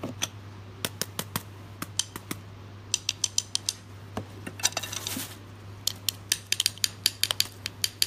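Bamboo drinking straws being handled around a clay jar: light, irregular clicks and taps, bunched in quick runs, with a brief rustle of a plastic bag about halfway through.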